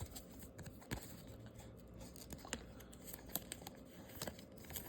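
Trading cards being handled and sorted: faint rustling with a scattering of small sharp clicks.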